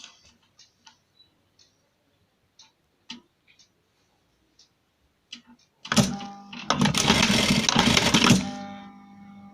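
Simaru SM-9800M automatic sewing machine: several seconds of small clicks as the fabric is handled, then the machine stitches in one steady run of about two and a half seconds, starting about six seconds in, before dropping to a faint hum.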